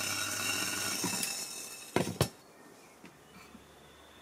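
Induction cooker coil buzzing with a steady high-pitched whine while it heats an enamelled iron pot, a buzz that comes from running on rectified mains with no smoothing. The buzz fades out about a second and a half in, and a metal pot clanks as it is handled about two seconds in.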